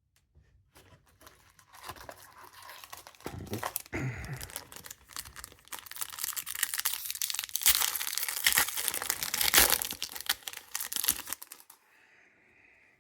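Foil wrapper of a Pokémon card booster pack being torn open and crinkled by hand, in a run of crackling rips that grows louder toward the end and then stops.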